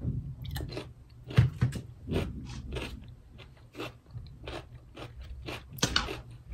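Someone chewing raw cucumber: a string of crisp, wet crunches, about two a second, the loudest about a second and a half in.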